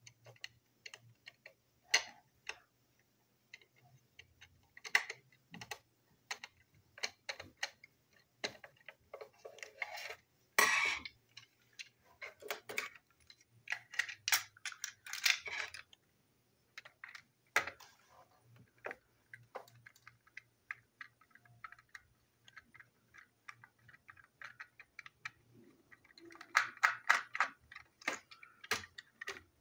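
Small screwdriver and the plastic shell and parts of a toy train engine being handled and screwed back together: irregular plastic clicks, taps and scrapes, with bursts of quick clicking now and then, one of them near the end.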